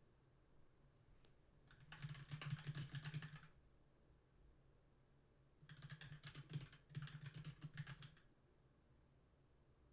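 Typing on a computer keyboard in two quick bursts of rapid key clicks, the first about a second and a half long and the second about two and a half seconds, with a pause between.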